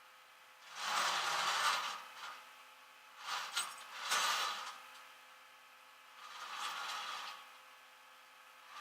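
Hand-tool work on a car: four separate bursts of scraping and rubbing, each about half a second to a second long, over a faint steady hum.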